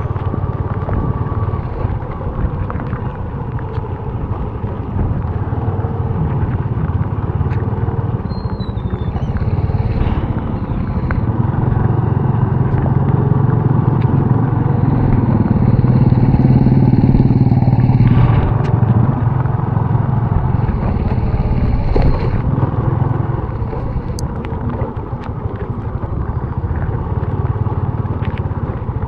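Honda RSX 110 motorcycle's small single-cylinder engine running while riding. It grows louder past the middle, then eases off again.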